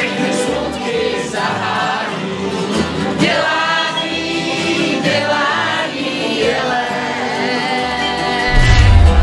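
A group of voices singing a Czech tramp-country song together to strummed acoustic guitars. Near the end a loud, deep boom comes in, falling in pitch.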